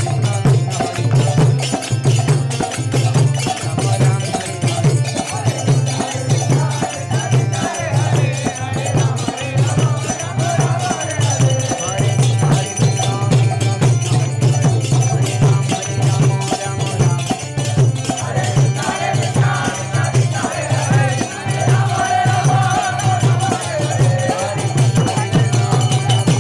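Devotional kirtan music: voices chant a wavering melody over a steady, even drum beat, with jingling hand cymbals or rattles on every beat.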